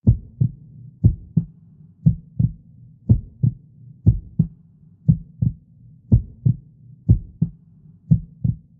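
Heartbeat sound effect: a low double thump, lub-dub, about once a second, nine beats in all over a low steady hum, used for dramatic suspense.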